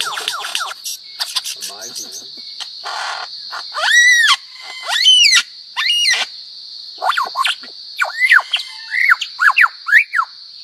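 A bird calling: a quick run of falling notes at the start, then three loud arched whistled calls about a second apart midway, then a string of shorter arched calls toward the end. A steady high insect buzz runs underneath.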